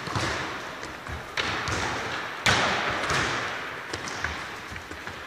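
Basketball thudding on a wooden gym floor, each hit echoing through a large sports hall: a few separate bounces, the loudest about two and a half seconds in.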